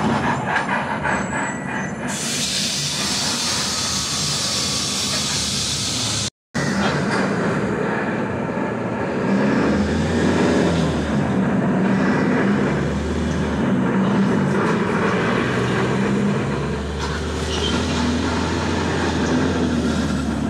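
Steady noise of a moving vehicle, with a low hum and rattle throughout, cutting out completely for a moment about six seconds in.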